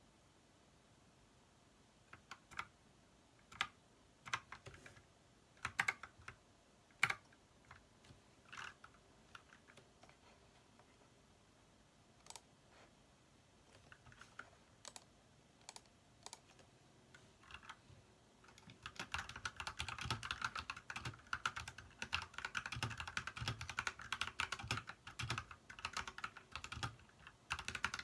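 Typing on an Ajazz mechanical keyboard fitted with cherry blossom keycaps. Scattered single keystrokes give way about two-thirds in to fast, continuous typing.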